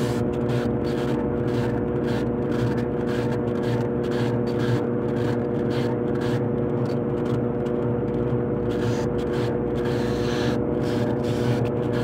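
Brastemp BWK12 top-load washing machine in its spin cycle: the basket spinning at speed, with a steady motor hum and a fast, evenly repeating swish over it.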